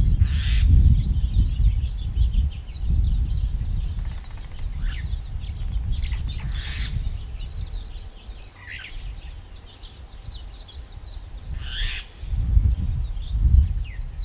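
Many small birds chirping continuously in rapid, overlapping calls, over a low rumble that is heavy at the start, fades through the middle and swells again near the end, with a few brief rustles.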